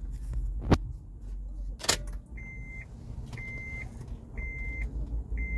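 Two sharp clicks of the ignition key going into the lock and being turned, then an electronic beep, a steady high tone about half a second long, repeating about once a second.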